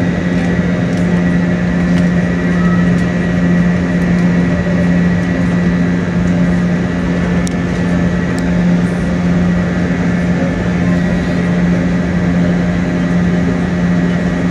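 Steady drone inside a jet airliner's cabin: a low hum with a faint high whine above it.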